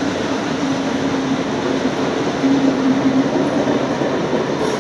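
Carriages of a steam-hauled passenger train rolling past at speed: a steady rush of wheel and rail noise, with a low steady tone that grows louder about halfway through.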